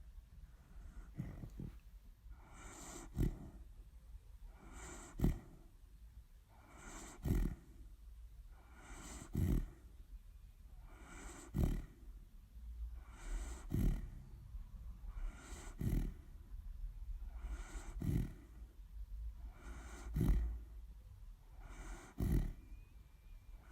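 A sleeping dog snoring in an even rhythm, one breath about every two seconds: each a short low snore followed by a breathy rush of air.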